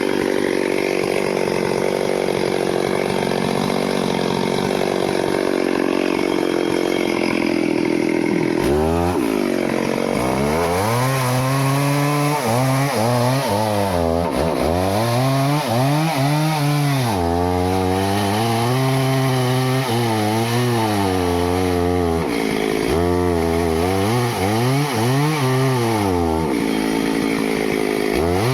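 Two-stroke Stihl chainsaw cutting teak wood. It runs at a high, steady pitch at first; about eight and a half seconds in, the engine speed drops sharply, then swings up and down every second or two.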